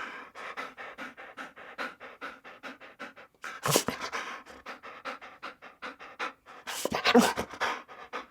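Dog panting fast and rhythmically, about four breaths a second, with two louder, sharper sounds about 3.5 s and 7 s in.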